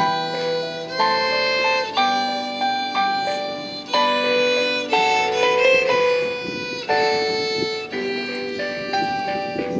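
A violin playing a slow, flowing melody with what sounds like piano accompaniment, a new note or chord struck about once a second.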